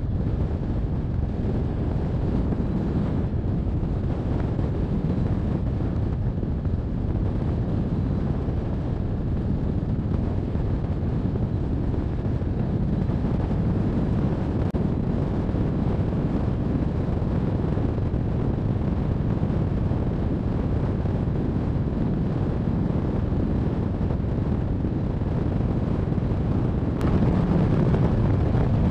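Steady wind rushing over the microphone of a hang glider's wing-mounted camera in flight, a low noise that gets a little louder near the end.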